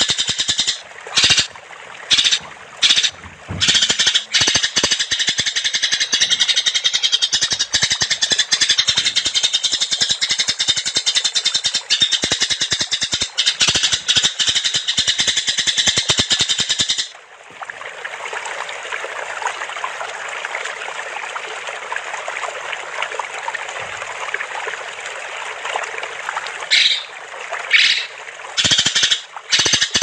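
Songbird masteran recording: a fast, rattling trill of rapidly repeated notes, with a few short gaps in the first seconds. A little past halfway it gives way to a softer, lower chatter, and the rattling trill returns near the end.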